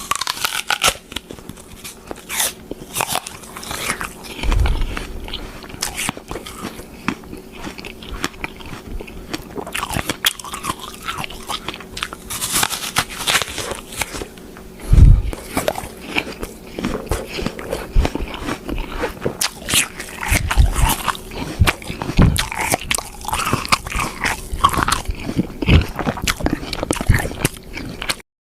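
Close-up biting and chewing of crunchy food: a dense, irregular run of crisp crunches and clicks, with a few heavier low thumps from the larger bites. A faint steady hum sits underneath.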